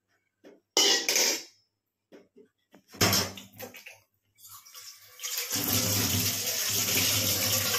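A couple of short clatters of steel dishes and cutlery about one and three seconds in, then tap water gushing onto a steel plate and into a stainless-steel sink, steady from about five seconds in.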